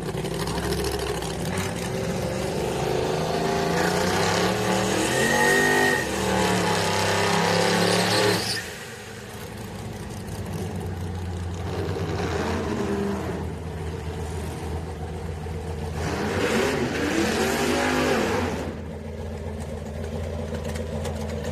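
Drag-race pickup truck's engine revving hard during a burnout at the starting line, pitch rising and falling, until it drops off about eight seconds in. It then runs more quietly, with two further rising-and-falling revs as the truck pulls forward.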